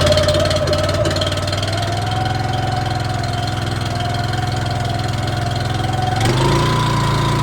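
Petrol engine of a pressure washer running steadily, its pitch stepping up and holding higher about six seconds in.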